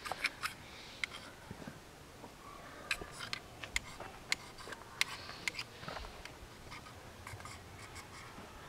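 Irregular short scrapes and clicks of a knife blade shaving a magnesium fire-starter block, faint, spaced unevenly across a few seconds.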